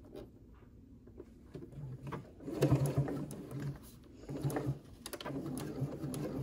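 Electric sewing machine stitching in short spurts through layered fabric, starting and stopping several times after a quiet first couple of seconds.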